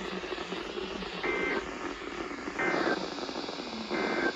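Emergency Alert System end-of-message data bursts: three short two-tone warbling data bursts about 1.4 s apart, over a steady hiss, marking the end of a National Weather Service flood alert.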